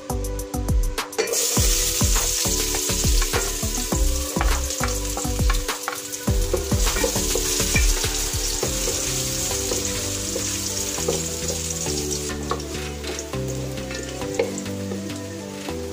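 Chopped aromatics sizzling in hot oil in an aluminum pot, stirred with a wooden spoon. The sizzle starts about a second in and dies down near the end. Background music plays underneath throughout.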